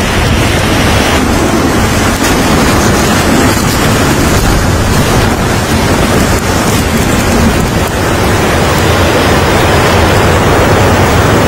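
Strong wind blowing across the microphone: a loud, steady rushing noise with a heavy low rumble.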